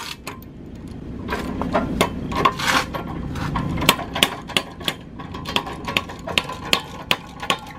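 Motorcycle lift jack being worked to raise a Harley Road King, with a run of sharp metallic clicks, about two to three a second in the second half, over shuffling and scraping.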